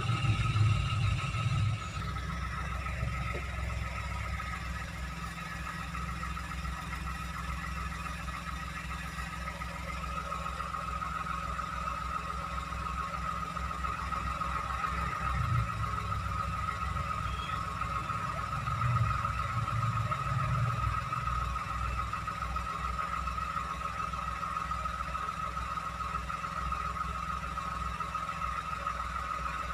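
Toyota Agya car engine idling steadily, with a low rumble and a constant high whine. It is a little louder for the first couple of seconds, then settles to an even run.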